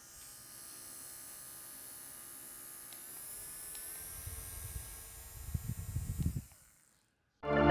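Electric fan running with a steady hum and hiss, recorded through a DJI Mic Mini wireless mic with noise cancelling on. Low rumbling knocks come in over the last few seconds, then the sound cuts off and music starts near the end.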